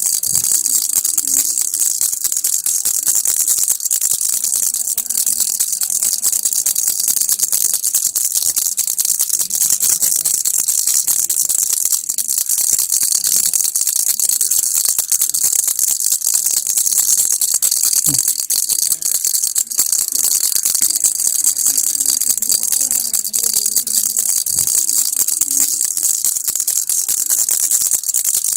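Baby rattle shaken without pause: a dense, steady stream of fine clicks and hiss.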